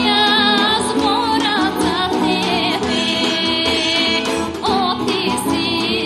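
A woman singing a Bulgarian folk song in a full, ornamented voice with wavering pitch, over instrumental folk accompaniment.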